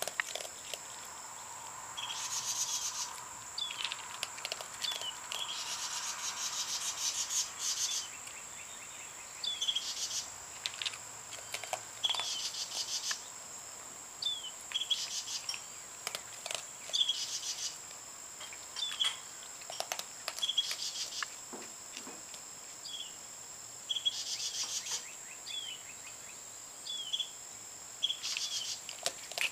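Outdoor ambience: a steady high insect drone, with a bird chirping in short notes about once a second. Every few seconds comes a brief burst of rapid ticking.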